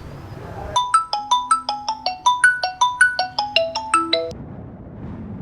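Mobile phone ringtone: a quick melodic tune of short, bright notes, about six a second over a low held tone. It starts about a second in and cuts off sharply after about three and a half seconds, as the call is answered.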